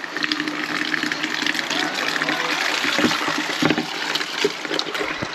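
Water running and splashing steadily while a farm animal waterer is being cleaned out, with a few small knocks.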